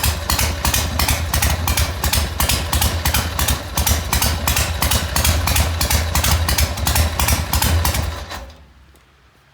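1980 Harley-Davidson Ironhead Sportster's 1000 cc V-twin idling with an even beat of about five pulses a second, then shut off about eight and a half seconds in.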